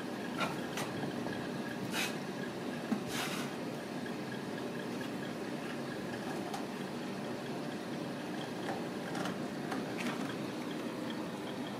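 A steady low mechanical hum, with a few short scratches and light knocks as kittens climb and scramble on a carpeted cat tree.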